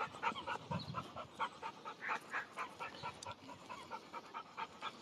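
An American bulldog panting softly, a quick, steady run of short breaths.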